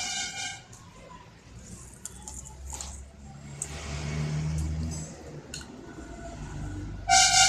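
Background street traffic: a motor vehicle rumbles past about four seconds in, with a few light clicks. A loud, steady high tone begins near the end.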